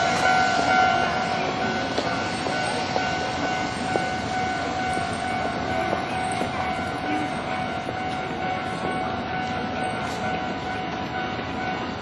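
Japanese level-crossing warning bell ringing its electronic kan-kan tone steadily, growing a little quieter after the first couple of seconds.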